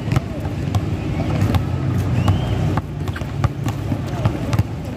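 Outdoor basketball court ambience: a low rumble and distant voices, with irregular sharp knocks of a basketball bouncing on the concrete court and a short squeak about two seconds in.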